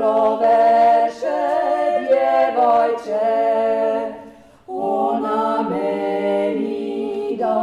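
Several voices singing a song together in long held phrases, breaking off for a moment about four and a half seconds in.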